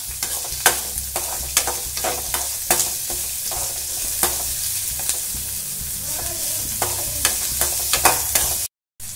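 Chopped shallots, garlic and black peppercorns sizzling in sesame oil in a metal kadai, lightly sautéed. A metal spatula stirs them, scraping and clicking against the pan about once or twice a second. The sound cuts out briefly near the end.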